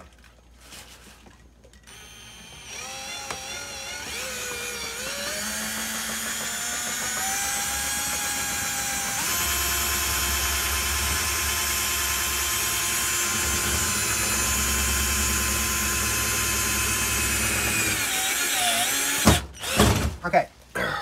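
Cordless drill running with a screwdriver bit, driving a screw into a window air conditioner's side panel. The motor whine starts about two seconds in, climbs in pitch over several seconds, holds steady, and stops near the end, followed by a few knocks.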